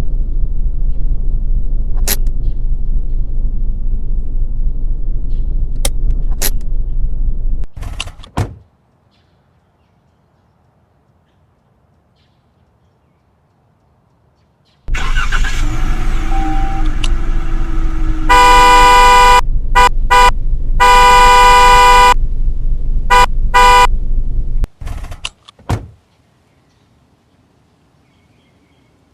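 Car horn honked in an uneven run: a long blast of about a second, two short toots, a longer blast of nearly two seconds, then two more short toots. It sounds over a low steady rumble that stops about eight seconds in and returns about fifteen seconds in, with a few sharp clicks.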